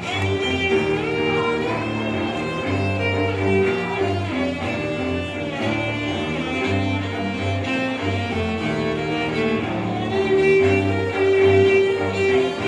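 Two cellos playing a bowed duet: sustained notes, one part low and the other higher, swelling louder near the end.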